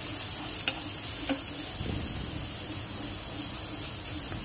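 Sliced onions sizzling in hot oil in a nonstick karahi as they are stirred with a wooden spatula, with a couple of light clicks of the spatula on the pan. The onions are just starting to brown at the edges.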